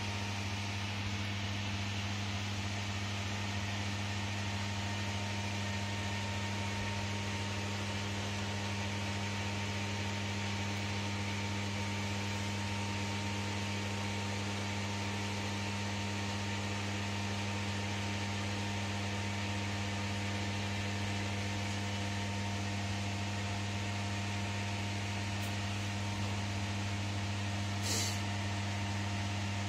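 Steady electrical hum with a fan-like hiss inside a closed Ferris wheel cabin, from the cabin's heating and ventilation unit. A short click near the end.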